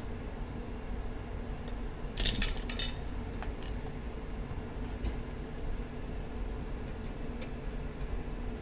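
Small metal tools clinking together as they are set down on a desk: a quick cluster of bright clinks a little over two seconds in, then a few faint single ticks.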